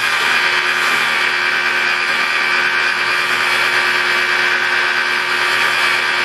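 Car polisher running steadily at about 1500–2000 RPM, its wool pad buffing rubbing compound into black paint to cut out the haze left by wet sanding. A constant motor whine over the rushing rub of the pad on the paint.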